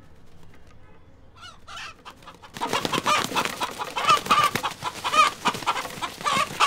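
Pet rooster clucking: a couple of short calls, then from about two and a half seconds in a loud, rapid run of repeated clucks.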